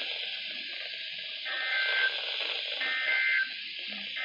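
Emergency Alert System data bursts on a NOAA Weather Radio broadcast: two short, harsh two-tone digital bursts about a second apart over steady radio hiss, the end-of-message code that closes the weekly test.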